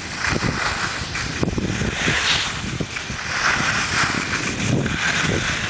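Wind buffeting the microphone over the hiss of skis sliding on packed snow, the hiss swelling and fading every second or two.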